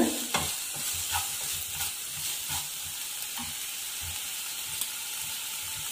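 Chopped onion and tomato sizzling in oil in a nonstick frying pan, with a steady hiss and a wooden spatula scraping and tapping against the pan now and then as it is stirred.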